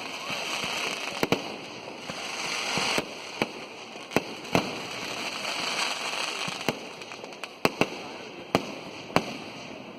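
Festival firecrackers going off in about a dozen sharp, irregularly spaced bangs, some in quick pairs, over a continuous crackling hiss.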